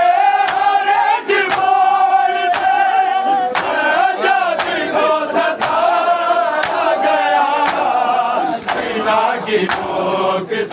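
A group of men chanting an Urdu noha (Shia lament) together. Sharp chest-beating strikes (matam) keep time at about one beat a second.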